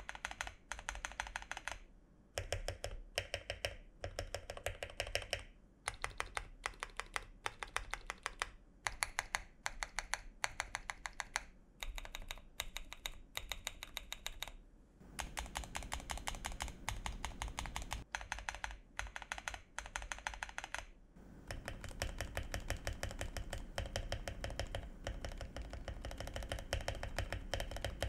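Mechanical keyboard being typed on, keys clacking in fast runs broken by short pauses. Its stabilizers are fitted with wire gaskets meant to quiet stabilizer rattle.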